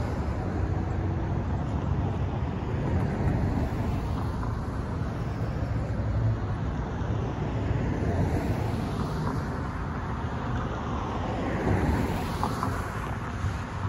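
Road traffic: cars and a pickup truck driving past, a steady hum of engines and tyres, with one car passing a little louder near the end.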